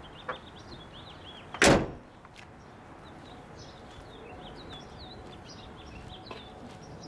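A single loud slam about one and a half seconds in, a car being shut, with small birds chirping throughout.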